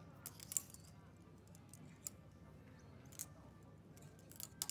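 Clothes hangers clicking and scraping on a shop's clothing-rack rail as garments are pushed aside by hand: a handful of short, sharp clicks, with a quick cluster near the end.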